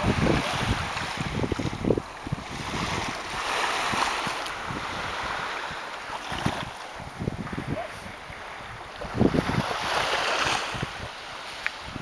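Small sea waves lapping and washing onto a sandy shore, the wash swelling twice and fading, with wind buffeting the microphone in low gusts.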